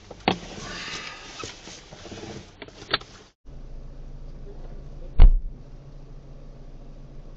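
Inside a moving car: a steady low engine and road hum with a few sharp knocks and rattles, the loudest one about five seconds in.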